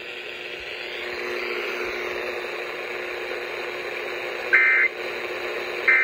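FM radio broadcast of an Emergency Alert System test ending: steady radio hiss with a low hum, then two short, harsh digital data bursts about a second and a half apart near the end. These are the EAS end-of-message codes, marking the close of the alert.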